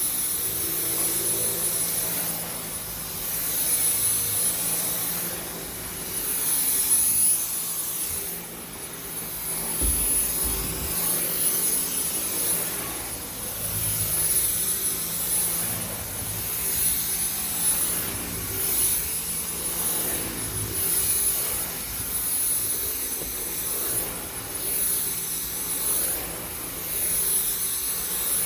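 Dyson V10 cordless stick vacuum running on carpet, its motor giving a steady high whine while the brush-bar cleaner head is pushed back and forth. The suction hiss swells and fades with each stroke, about every one to two seconds.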